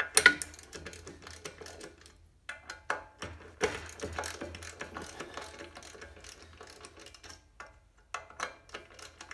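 Socket ratchet wrench clicking in short runs as 1/2-inch nuts are worked loose on a drum-brake backing plate, with a sharp metallic knock about a quarter second in.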